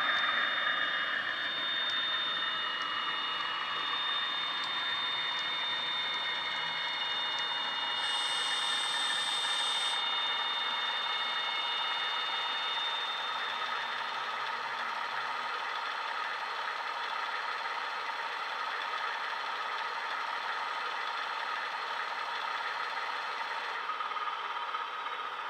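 Class 88 diesel engine sound played by a DCC sound decoder through the small speaker of a model Euro Dual locomotive. The engine note falls as the model slows to a stop, then idles steadily, with a two-second hiss about eight seconds in.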